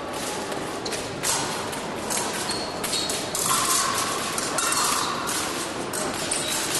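Fencing hall ambience: scattered clicks and knocks over a steady hall noise, with a held electronic tone for about two seconds from halfway in.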